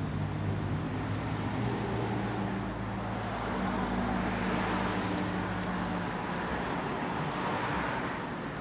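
Road traffic: a motor vehicle's engine hum and tyre noise swell as it passes and then fade. Two short high chirps come about five seconds in.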